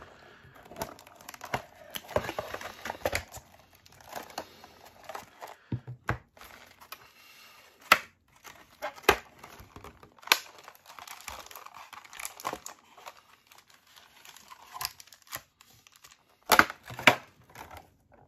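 Plastic wrap and cardboard packaging of a trading-card box being crinkled and torn open, with irregular crackling and sharp clicks and taps as it is handled.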